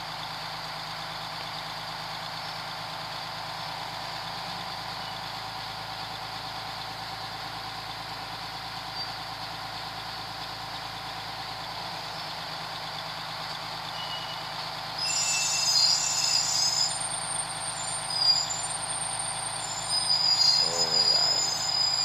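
Boat hoist running steadily as it lowers a sailboat in its slings, a constant engine drone. From about 15 s in, high-pitched squeals come and go over the drone and are louder than it.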